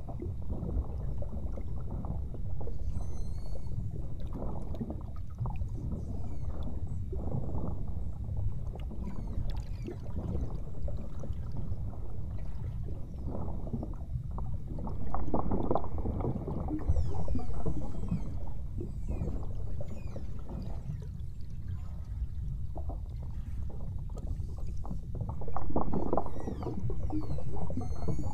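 Water sloshing and splashing against a boat's hull over a steady low rumble, in irregular bursts that swell louder twice.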